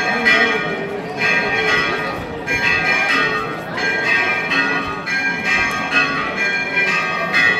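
Church bells ringing, a ringing stroke about every second and a quarter, over a faint murmur of voices.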